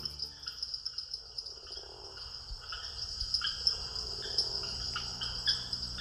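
Night chorus of crickets and other insects: a steady high-pitched trill, with short chirping calls from other creatures dotted through it every half second or so.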